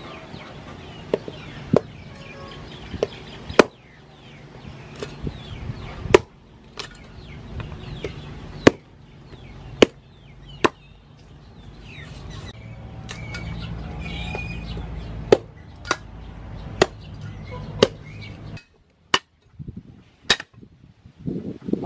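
Heavy meat cleaver chopping through raw pork leg on a wooden chopping board: about fifteen sharp chops at an uneven pace, a second or so apart.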